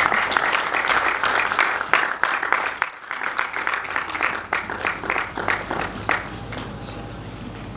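Audience applauding, thinning out and dying away over the last couple of seconds.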